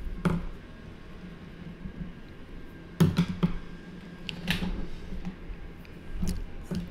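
Colored pencils clicking and knocking as they are picked up and set down, several sharp clicks with a cluster about three seconds in. A low steady hum runs underneath.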